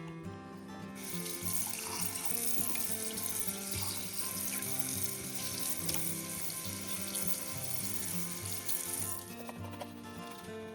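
Water tap running into a sink as a steady hiss. It is turned on about a second in and shut off near the end.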